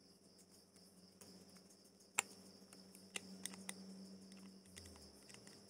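A few faint clicks and taps of a fishing reel's metal parts being handled after its gear has been oiled, the sharpest click about two seconds in and a few lighter ones a second later, over a steady high chirring.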